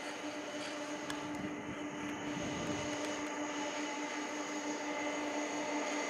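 Jet engines of a four-engine Boeing 747-400 freighter running with a steady whine over a broad rush of noise, slowly growing louder.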